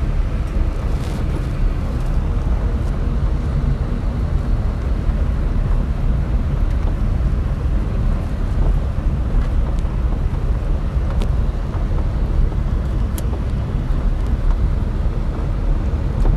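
Car driving on a gravel road: a steady low rumble of tyres and engine, with a few sharp ticks through it.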